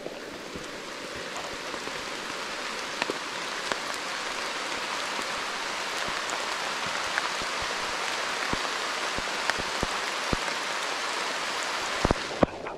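Heavy rain pouring down, a steady dense hiss with scattered sharp drop ticks, and a couple of louder knocks near the end.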